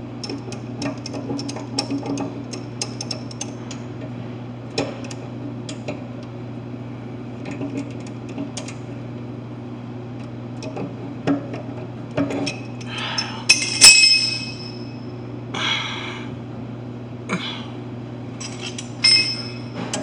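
Pliers clicking and scraping on the metal drain trap and fittings under a drinking fountain, with scattered light clinks and a few louder scraping rattles in the second half, the loudest about two-thirds of the way in. A steady low hum sits underneath.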